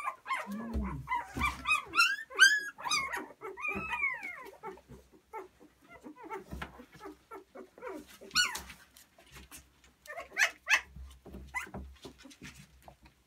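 Three-week-old cockapoo puppies squealing and yelping while they are picked up, a quick string of short high-pitched cries that bend up and down in the first few seconds, then a few more scattered cries later. Low bumps from handling the puppies come through under them.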